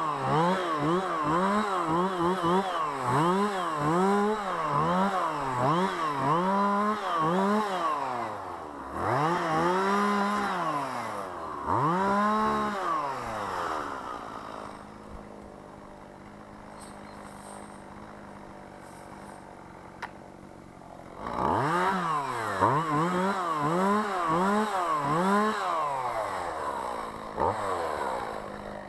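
Two-stroke chainsaw revved in quick repeated blips, about one and a half a second, then given two longer revs. It drops to a quieter idle for several seconds before the quick revving starts again.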